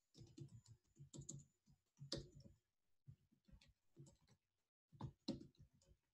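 Faint typing on a computer keyboard: irregular keystrokes in short runs with brief pauses between them.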